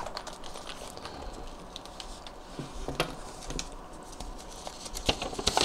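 Handling noises from an opened e-cigarette starter-kit case: soft rustling with scattered small clicks as its contents are moved, and a cluster of clicks near the end.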